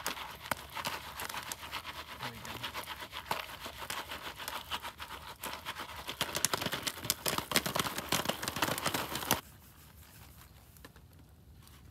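Jiffy Pop foil popcorn pan being shaken over a campfire: a dense run of rattles and clicks that grows busier, then cuts off suddenly about nine seconds in.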